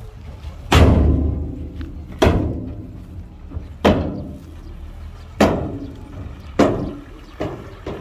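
Five heavy thuds from earthmoving machinery at work, about a second and a half apart, each fading off slowly, over the low steady running of an engine.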